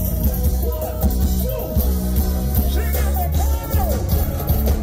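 Live band playing upbeat Virgin Islands carnival calypso music with a heavy bass line and a steady drum beat, with a vocal or melody line sliding over it.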